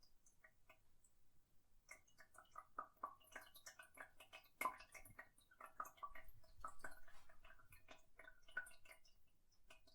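Faint, irregular dripping and plinking of water in a toilet after a flush, thickest in the middle and thinning out near the end.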